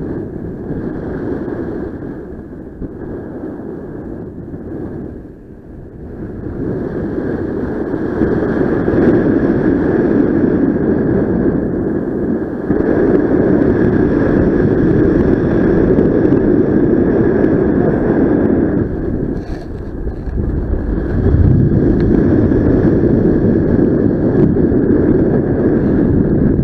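Airflow buffeting the microphone of a paraglider pilot in flight: a loud, rough rush of wind noise with a steady high tone underneath. It swells after about seven seconds and dips briefly about twenty seconds in.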